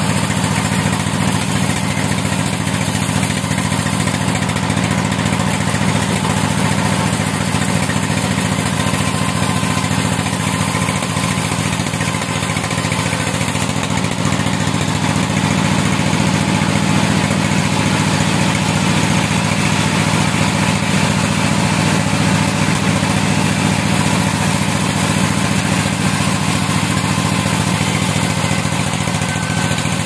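Large vertical band sawmill running with a steady drone as a long plank is fed through the blade and ripped lengthwise.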